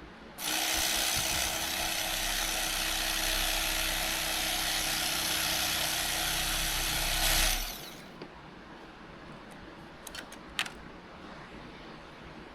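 Corded electric cutting tool running steadily as it cuts through foam, starting about half a second in and switching off abruptly after about seven seconds. A few light clicks follow near the end.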